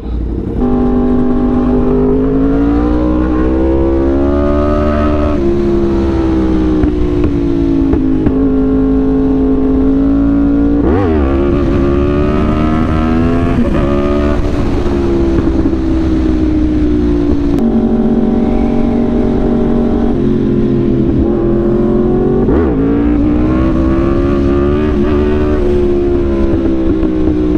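Yamaha R1's inline-four engine running under way, loud and steady, its pitch slowly climbing and falling with the throttle and dropping suddenly several times.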